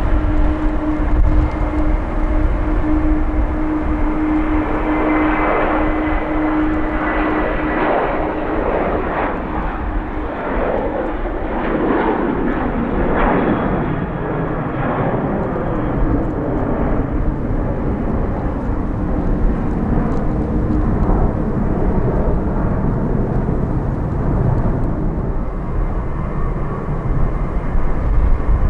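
Jet airliner engines running as the plane passes. A steady whine in the first third gives way to a broader rushing sound that peaks about halfway through and then eases off.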